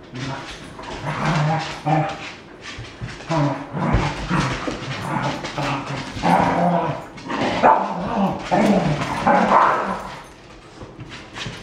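Cardigan Welsh Corgis barking and yipping at each other in rough play, in repeated short bursts, with a lull near the end.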